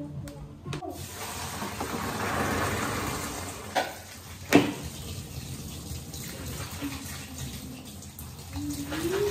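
Kitchen tap running into a sink while soaked black beans are rinsed in a plastic colander, with water splashing through the beans. Two sharp knocks come about four seconds in.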